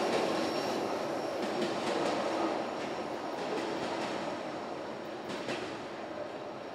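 Rear cars of a freight train, tank cars and a covered hopper, rolling away on the rails: a steady wheel-on-rail rumble with a few sharp clicks, growing fainter as the train recedes.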